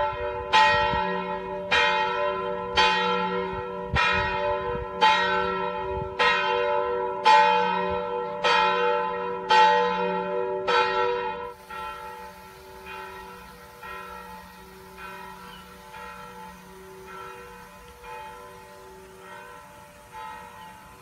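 A single church bell tolling steadily, about one stroke a second, each stroke ringing on into the next. About halfway through, the strokes become quieter and continue at the same pace.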